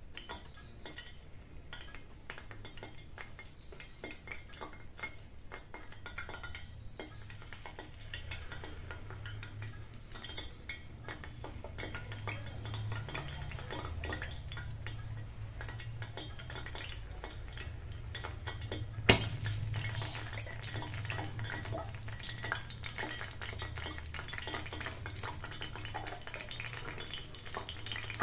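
A steel spoon clinking and scraping against a metal unniyappam pan as batter is dropped into the wells of hot coconut oil, with a soft frying sizzle that grows as more wells fill. One sharp clink, about two-thirds through, is the loudest sound.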